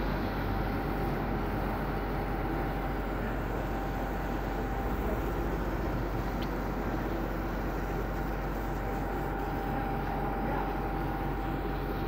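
Steady low rumble of a running engine, with a faint thin tone held through it and a single faint click about six seconds in.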